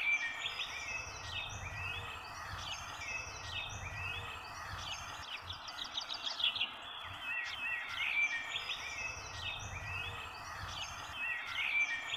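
Birds chirping and twittering in quick repeated calls, high-pitched, over a steady background hiss and faint low rumble.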